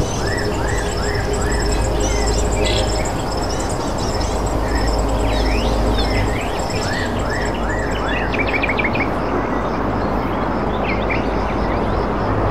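Birds chirping: short rising chirps in quick runs of three or four, over a steady background hiss and low hum.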